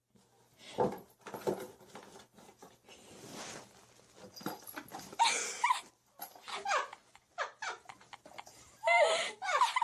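Domestic cat crying out in a series of short calls that bend and fall in pitch, the loudest about five seconds in and again near the end.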